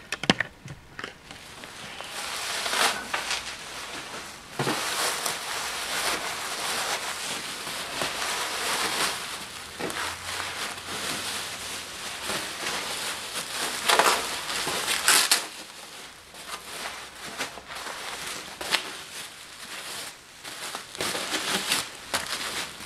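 Plastic bubble wrap rustling and crinkling as it is pulled apart and unwrapped by hand, with sharp crackles throughout and the loudest ones about two-thirds of the way through.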